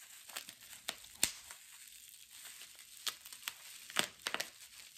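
Packaging crinkling and rustling as items are handled and unpacked from a box, with scattered sharp little clicks and snaps.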